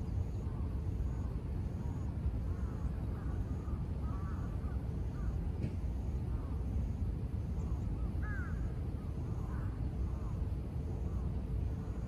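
Crows cawing several times over a steady low rumble.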